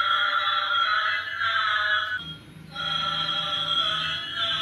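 Battery-operated bump-and-go toy airplane playing a tinny electronic tune through its small speaker as it rolls, with a short break a little past halfway before the tune starts again.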